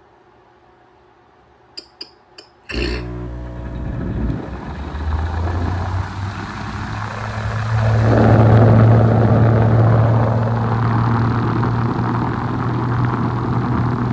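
A 2011 Ducane heat pump starting up in heat mode. A few sharp clicks come first, then the compressor kicks on with a sudden steady hum. About eight seconds in a rush of noise builds, and the unit settles into steady running.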